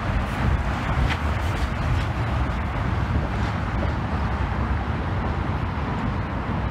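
Steady road traffic noise with wind buffeting the microphone.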